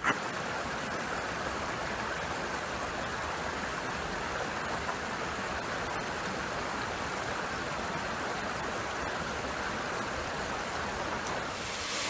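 Steady rushing of a moorland brook's running water, an even wash of sound that starts abruptly and changes near the end.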